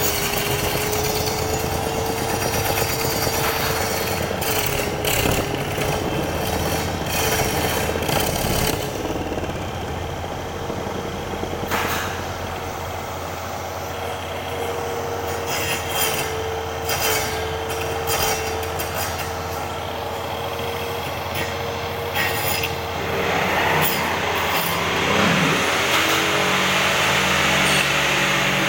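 Table-mounted circular saw running with a steady whine while its blade cuts a turning wooden cylinder round, with scraping and knocking from the wood against the blade. Near the end a falling tone is heard and a rougher scraping sound with a lower hum takes over.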